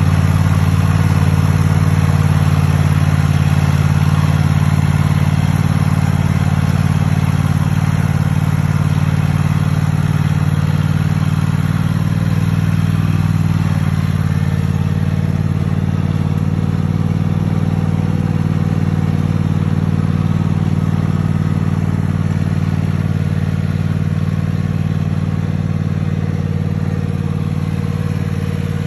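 Cub Cadet riding lawn mower's engine running steadily with a low hum, fading slowly as the mower drives off.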